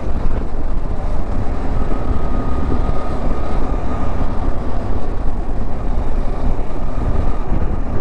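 Motorcycle riding at about 40 km/h: steady engine noise mixed with wind rushing over the handlebar-mounted camera's microphone.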